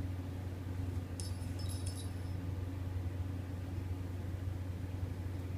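A brief metallic jingle, a few light high clinks about a second in, over a steady low hum.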